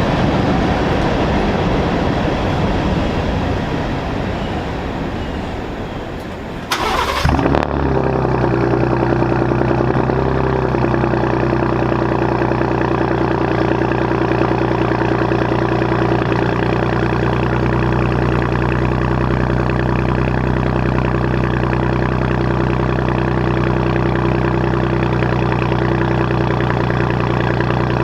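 2018 Ford F-150 Raptor's twin-turbo 3.5 L EcoBoost V6 with a Borla exhaust, started about seven seconds in with a short loud flare, then settling into a steady, deep idle. Before it starts there is a rough, uneven rumble that fades away.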